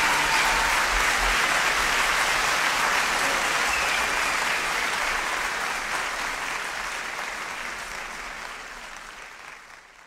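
Large audience applauding, a dense steady clapping that fades out gradually over the last four seconds or so.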